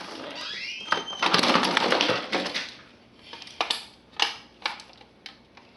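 A radio being broken apart for scrap: a loud crunching crack of parts giving way for about a second, then a few separate sharp clicks and snaps as the pieces are worked loose.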